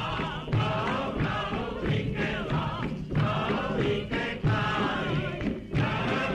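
Film-soundtrack music: a group of voices chanting together over a steady low beat.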